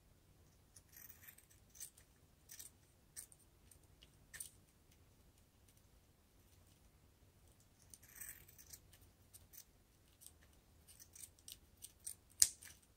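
Scissors snipping a plastic drinking straw lengthwise into thin strips: faint, irregular snips and clicks, with a couple of longer cuts about a second in and about eight seconds in, and the sharpest snip near the end.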